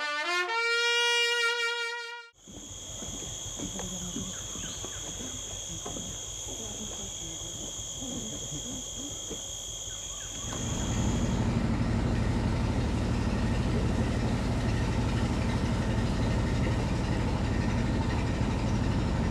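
A short rising musical jingle, then a steady high insect drone over forest ambience. From about ten seconds in, a river boat's engine runs steadily with a low hum.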